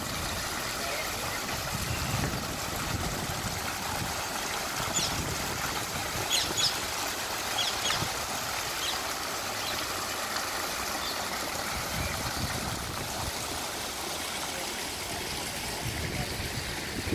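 Water from a tiered ornamental fountain's jets and spouts splashing and trickling into its basin, a steady even rush, with a few brief high ticks around the middle.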